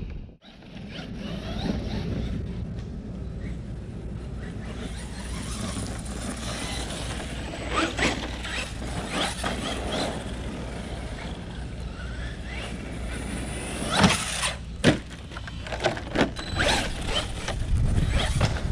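Laegendary Thunder brushless 1/10 RC truck driving over rough ground: steady tyre and surface noise with a faint rising and falling motor whine, and several sharp knocks as it bounces, the loudest two about two-thirds of the way in.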